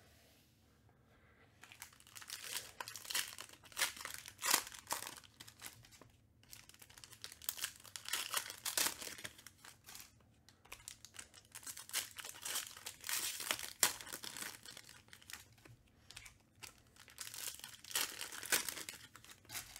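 Wrappers of Panini Contenders Baseball trading card packs crinkling and tearing as the packs are opened by hand. The crackling is irregular and starts about a second and a half in.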